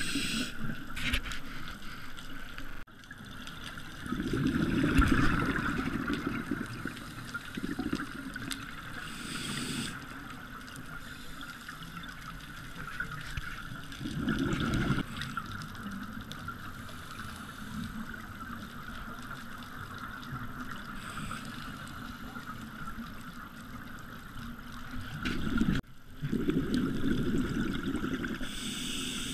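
Underwater sound picked up through a diving camera's housing: a scuba diver breathing on a regulator, with short hisses of inhalation and several low bubbling rushes of exhaled bubbles a few seconds apart.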